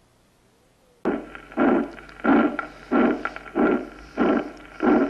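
Stethoscope recording of an aortic stenosis murmur: a harsh, rough midsystolic murmur repeating with each heartbeat, about one and a half beats a second, starting about a second in. In this first example the murmur obliterates the second heart sound.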